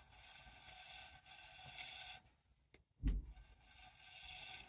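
Platter stack of an opened Seagate ST-225 MFM hard drive turned by hand, giving a faint steady hiss with several high ringing tones, in two stretches with a pause between. A dull knock falls about three seconds in.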